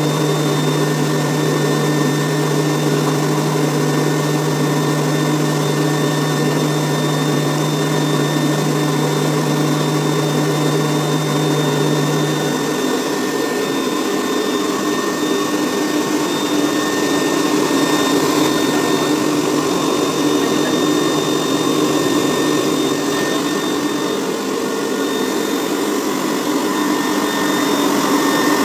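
Homemade electric air blower running steadily, a rushing of air with a thin high whine, blowing up through a pipe to keep a ball aloft. A low hum under it drops out about twelve seconds in.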